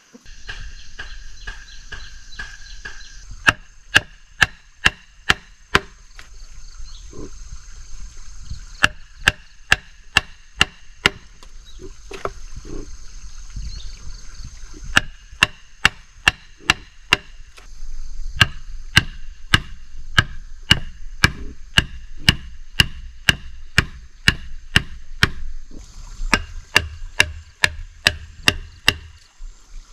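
A hatchet blade chopping into a log to hollow out a wooden trough: sharp, evenly paced blows about two to three a second. A steady high-pitched drone runs in the background, shifting a few times.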